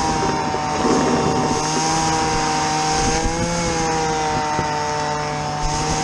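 A small engine runs steadily at a constant speed, its pitch wavering briefly about three and a half seconds in.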